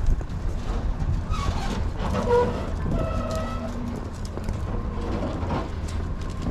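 Footsteps crunching on packed snow, with wind rumbling on the microphone.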